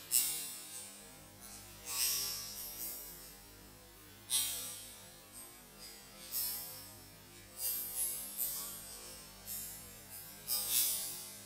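Butterfly knife with skeletonized metal handles being flipped at speed: handles and blade clacking and swishing in quick flurries about every one to two seconds, over a steady electrical hum.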